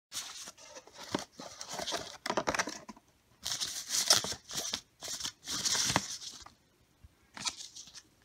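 Unboxing rustle: a cardboard box slid open and the clock's clear plastic bag crinkling as it is pulled out and unwrapped, in irregular handling bursts with a pause about three seconds in.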